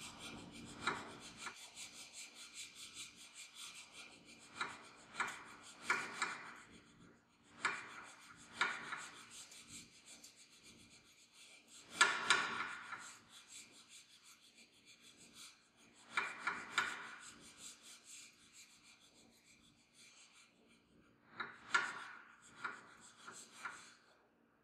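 Fine-tooth file draw filing a steel part clamped in a bench vise: short runs of rasping back-and-forth strokes with pauses between, the finishing stage that leaves a flat surface with a fine, even finish.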